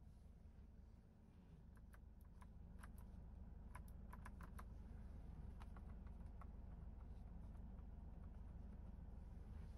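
Plastic dashboard push-buttons of a Hyundai Grand Starex clicking as they are pressed: a quick, uneven run of light clicks over a few seconds, over a low steady hum.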